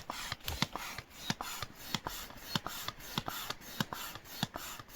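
Manual pump inflating an airbed: a run of irregular clicks and rubbing strokes, about two or three a second.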